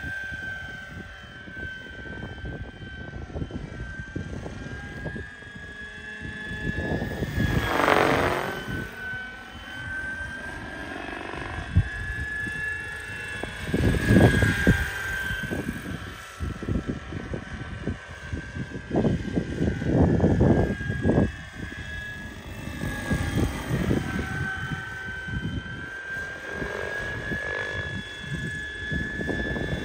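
Radio-controlled 1:6-scale Bo 105 model helicopter in flight, its drive and rotors making a steady high whine. It comes past close and loudest about eight seconds in. Irregular low rumbles come and go, loudest about fourteen seconds in and again around twenty seconds.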